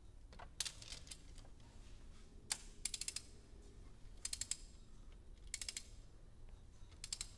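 Ratchet of a long-handled torque wrench clicking in short bursts of a few quick clicks, about five times, as a camshaft adjuster bolt is worked toward its 115 N·m tightening torque.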